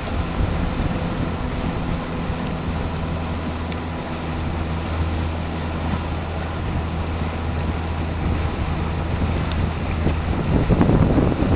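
Wind buffeting the microphone and water rushing past a Farr 3.7 sailing dinghy under sail, a steady rushing noise with a low hum beneath it that grows louder near the end.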